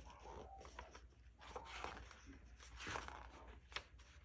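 Near silence with a few faint, soft rustles of a hand brushing the paper pages of an open picture book.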